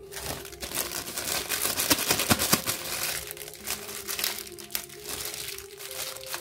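Thin black plastic wrapping crinkling and crackling as it is pulled and unfolded by hand from a toy figure, loudest about two seconds in.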